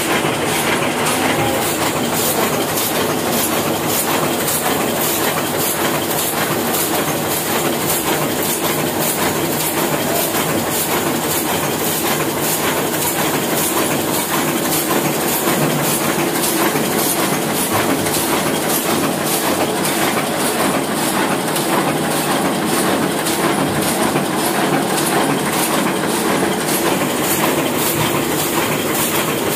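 Old Hashimoto sheetfed offset printing press running, a steady loud mechanical clatter that beats about twice a second as it cycles.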